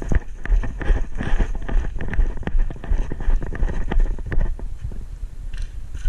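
Wind buffeting the microphone as a low, uneven rumble, with a scatter of irregular clicks and knocks over it.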